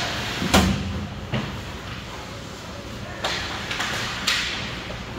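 Hockey play in a rink: four sharp knocks and thuds, the loudest and deepest about half a second in, over a steady hiss of rink noise.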